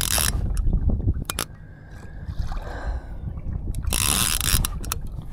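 Water sloshing and splashing against a fishing kayak's hull as it is towed along by a big fish, with wind rumbling on the microphone. Two louder splashes come at the start and about four seconds in, and a few sharp clicks are heard.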